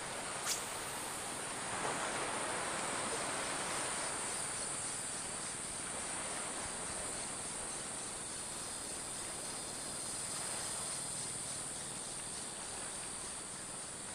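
Steady shoreline ambience: a high, even insect chirring over a soft hiss of wind and shallow seawater, with one short click about half a second in.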